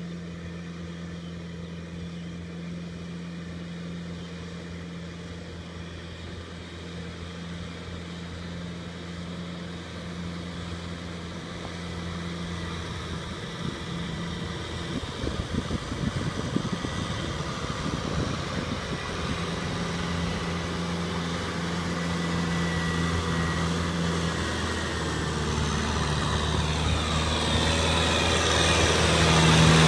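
Compact diesel tractor engine running steadily as the tractor tills a wet paddy with a rear rotary tiller, growing louder as it comes closer. Near the end a rushing noise from the churning tiller and mud rises over the engine.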